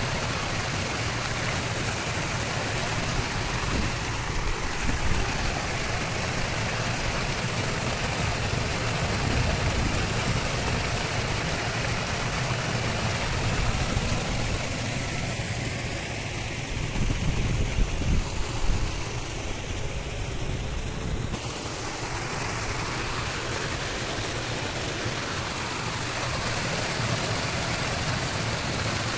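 Water rushing and splashing steadily as it pours down a small earthen channel and over a bank in a waterfall, with a low rumble underneath.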